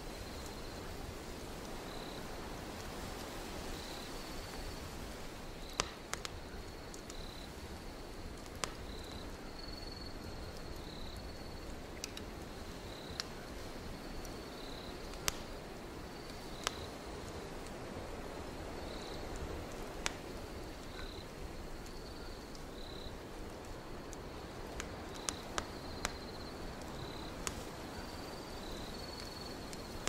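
Wood fire crackling, with a dozen or so sharp pops scattered through, over a steady rushing hiss of wind. Crickets chirp throughout, short high chirps about once a second.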